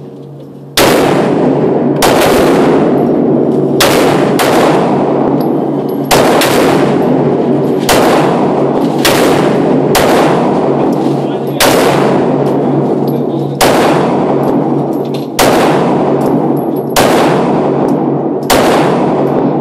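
A Glock 26 9 mm subcompact pistol fired about a dozen times in slow, steady succession, roughly one shot every one and a half to two seconds. Each shot rings out in the echo of an indoor range.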